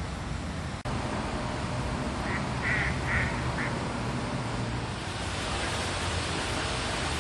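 Mallard quacking: four short quacks in quick succession a little over two seconds in, over a steady low background noise.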